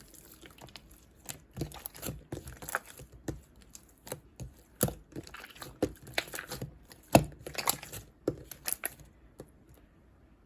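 Clear slime being squished and pressed by hand, making irregular clicks and crackles that stop about nine seconds in.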